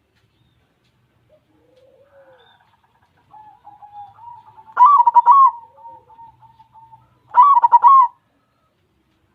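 White zebra dove (perkutut) cooing: softer, drawn-out cooing, then two loud rolling coo phrases, one about five seconds in and the other about two and a half seconds later.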